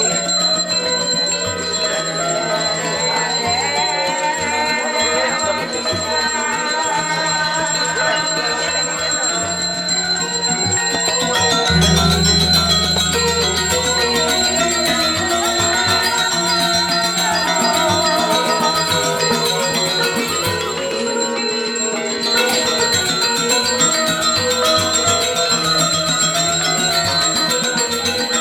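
A high bell rings without a break over ceremonial music full of ringing metal tones, with a deep tone that comes and goes and swells about twelve seconds in.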